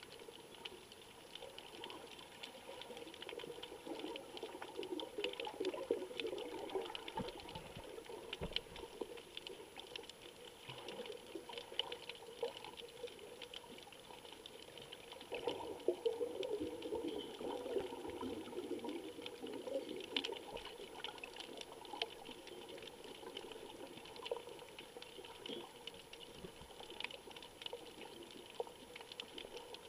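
Underwater sound picked up through a camera's waterproof housing: a steady crackle of small clicks over faint water noise, with bubbly, gurgling swells twice, a few seconds in and again about halfway.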